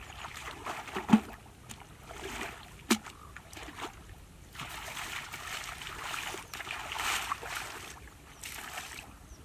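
Shallow muddy water splashing and sloshing as a person wades through it and works his hands in it. There are two short sharp knocks, about one second in and near three seconds in.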